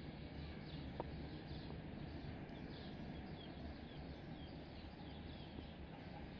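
Faint bird chirping: short, high, falling chirps repeated two or three times a second over a low, steady background noise.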